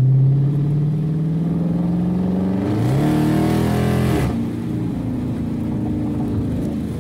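Dodge Charger R/T's 5.7-litre Hemi V8 with the mid-mufflers deleted and the resonators left on, heard from inside the cabin while driving. The exhaust note climbs slowly as the car accelerates, then about three seconds in the revs rise quickly and hold for over a second before dropping back to a steady cruising note.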